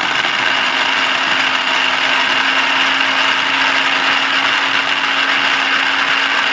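Brentwood mini food processor running steadily, its blade chopping boiled chicken breast and a raw egg into a smooth batter: a loud, even motor whir with a constant low hum.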